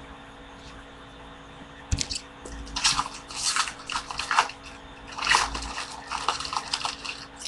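A trading card pack's wrapper being torn open and crinkled by hand, an irregular crackling that starts about two seconds in with a soft knock and runs on in uneven bursts.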